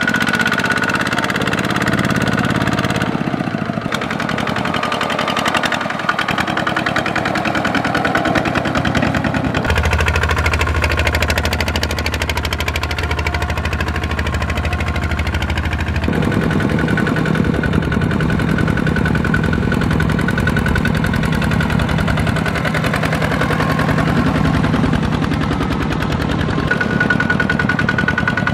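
Single-cylinder diesel engines of two-wheel walking tractors running under load as they pull loaded trailers through deep mud: a fast, steady knocking chug. The engine note changes abruptly three times.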